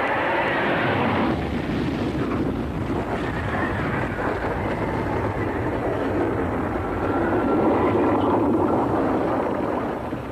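Film sound effect of a flying saucer: a loud, steady engine-like roar with a rushing noise, easing off near the end.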